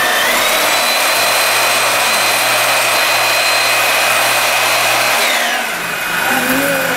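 Handheld corded electric power tool running at high speed: a steady whine over a rushing noise. Its pitch steps up just after the start and drops to a lower, steady whine a little after five seconds.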